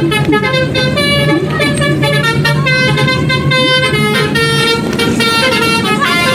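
Basuri telolet horn on a bus playing a fast tune of changing multi-tone notes. Near the end one chord slides down in pitch.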